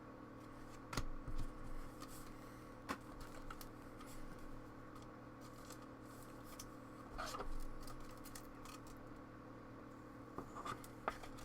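Trading cards and packs being handled on a table: a few light clicks and scrapes, with a brief rustle near the middle, over a steady low electrical hum.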